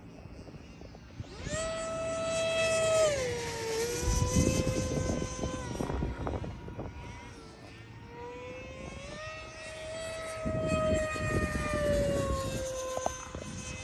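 E-flite Viper 90mm electric ducted fan jet whining as it flies past. Its pitch drops sharply about three seconds in, climbs again near the middle and falls once more near the end.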